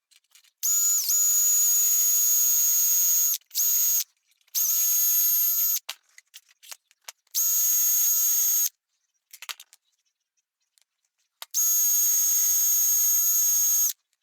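Small high-speed electric tool with a soft wire brush, switched on in five bursts of a steady high-pitched whine with scrubbing, cleaning paint and rust off pocket-knife parts. Its pitch dips for a moment about a second in.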